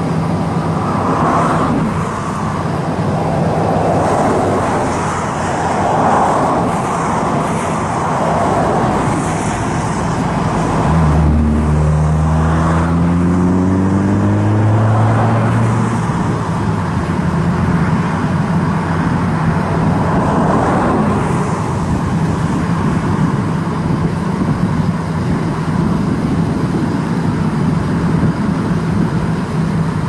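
Road traffic with a steady engine hum and cars passing in slow swells. Starting about 11 seconds in, one vehicle's engine rises in pitch for several seconds as it accelerates.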